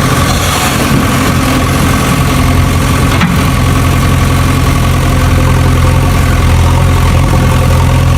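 A mini tractor's engine idling in a steady drone, with a single sharp click about three seconds in.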